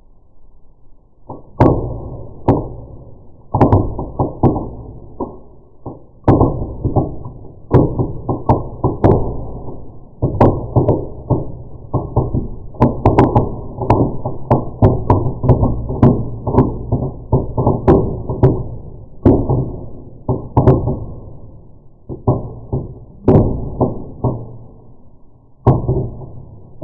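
A long irregular series of firework bangs and crackles, deep and muffled, in fast clusters with short gaps between them.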